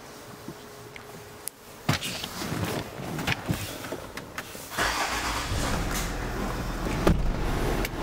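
A few clicks and rustles inside the cabin of a Land Rover Discovery, then its engine is started about five seconds in and catches. It settles into a steady low idle heard from the driver's seat.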